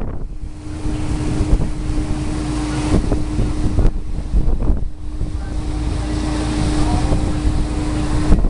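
Wind buffeting the microphone over the steady drone of a cruise boat's engine, with water rushing past the hull. The drone drops out briefly about four seconds in.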